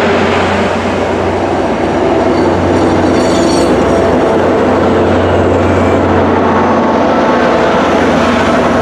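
MBTA commuter rail train passing close by: a steady rumble of wheels on rail over a constant low hum. A brief high-pitched squeal comes in about three seconds in.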